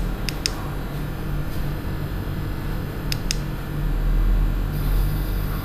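Keypad buttons on a GPS tracking padlock pressed while a password is typed in: two quick pairs of short clicks, over a steady fan hum.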